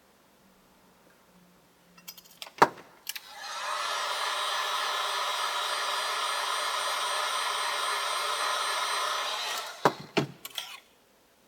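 Handheld hot-air blower (heat gun or hair dryer) clicked on a few seconds in, running steadily with a fan whine for about six seconds, then switched off with a few clicks; it is warming the adhesive under a cracked iPad's glass so the digitizer can be pried off.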